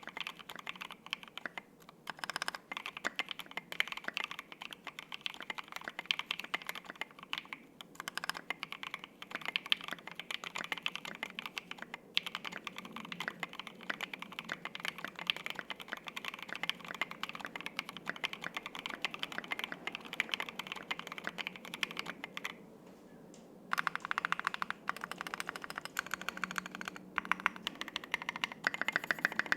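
Typing on a Piggy 60% custom mechanical keyboard with lubed Lavender switches on a flexible leaf-spring polycarbonate plate and SA double-shot ABS keycaps: a continuous patter of key clicks. The typing pauses for about a second about three-quarters of the way through, then resumes faster.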